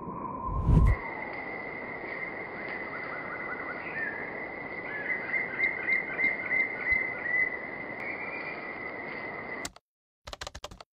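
Outdoor ambience through a trail camera's microphone: a steady hiss with a thin, high, steady whine, and a bird calling a run of short chirps in the middle. Near the end the sound cuts out suddenly, followed by a few soft clicks.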